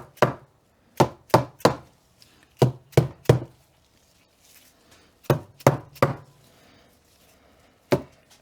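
Sharp knocks on the metal differential cover as it is tapped down onto its dowels, coming in quick groups of two or three with pauses between, and a single knock near the end.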